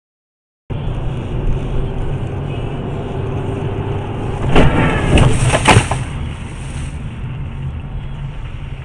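Dash-cam audio of a car on the road: steady engine and road rumble, broken about halfway through by a collision, a quick run of loud bangs and squeals over a second or so, after which the rumble goes on.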